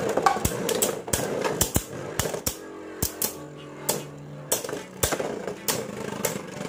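Two Beyblade Burst spinning tops clashing in a clear plastic stadium: a quick, irregular run of sharp plastic clacks as they strike each other and the stadium wall.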